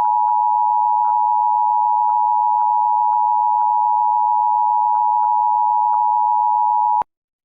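Emergency Alert System two-tone attention signal, the 853 Hz and 960 Hz tones sounding together, steady and loud, marking the start of a Required Monthly Test alert. It cuts off suddenly about seven seconds in.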